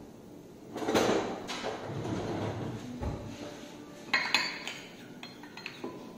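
Kitchen utensils rattling about a second in as a spoon is fetched, then a metal spoon clinking sharply against a small glass bowl several times from about four seconds in, as sour cream is stirred.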